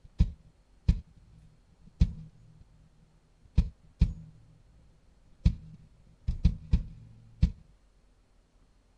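One NMF-separated component of a drum loop playing on its own: about ten sparse, irregularly spaced low drum hits, each with a short low ring, the kick-like part of the beat isolated from the rest of the kit.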